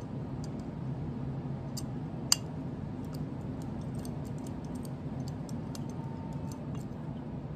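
Light metal ticks and clicks as a Holley jet tool turns brass main jets into the secondary metering block of a Holley 4150 carburetor, with one sharper click a little over two seconds in. A steady low hum runs underneath.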